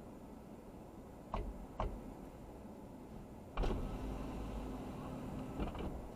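Two short clicks, then a car's electric power window motor running for about two seconds with a steady hum and stopping with a soft clunk.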